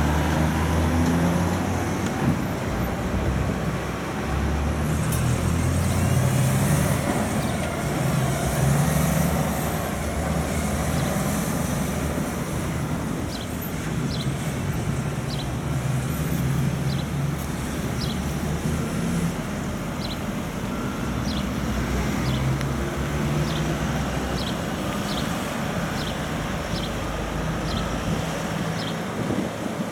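Heavy diesel trucks and cars passing on a busy road, with engines running and tyre noise. In the second half, short high ticks repeat once or twice a second.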